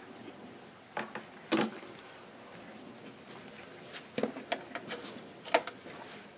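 Pieces of cork bark being set by hand into a glass terrarium, knocking and scraping against the glass and the tank's fittings: scattered light knocks, a louder cluster about a second and a half in, and a quick run of knocks near the end with the sharpest one just before it stops.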